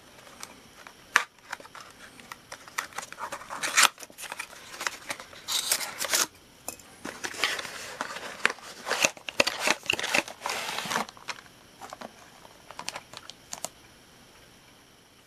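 Toy-train packaging being handled: a cardboard box and the clear plastic wrap around the train crinkling and rustling in irregular bursts with small clicks and scrapes, busiest in the middle and stopping about eleven seconds in, followed by a few light taps.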